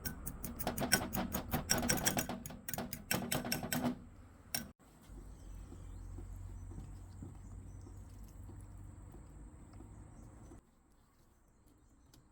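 A kitchen utensil clinking rapidly against a dish, about five sharp ringing clicks a second for roughly four seconds, then one last click, followed by a steady low hum.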